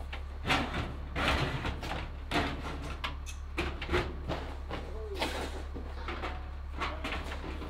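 Short, irregular scraping and sliding noises of a steel siding panel being handled and slid into place, over a steady low hum.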